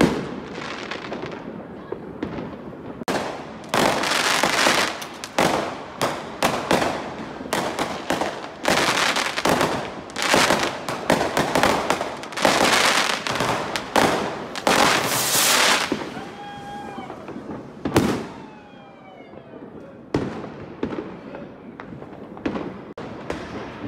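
Fireworks going off: a rapid series of bangs and crackling bursts from aerial shells, densest through the middle and thinning out about two-thirds of the way in, where a few short pitched, falling tones are heard.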